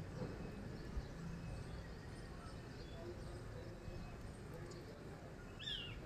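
Steady outdoor background noise, mostly a low rumble, with a short high-pitched bird chirp near the end.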